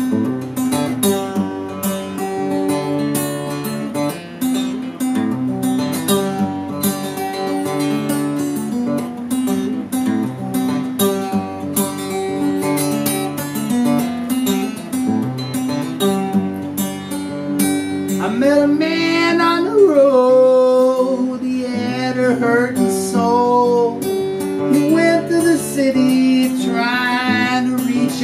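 Steel-string acoustic guitar strummed in a steady rhythm, playing the introduction to a song. About two-thirds of the way through, a man's voice comes in over it, singing long notes that slide up and down in pitch, in several short phrases.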